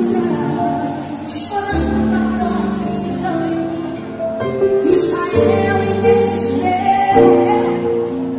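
Music with a woman singing, a Christian gospel song, the accompaniment changing chords every few seconds.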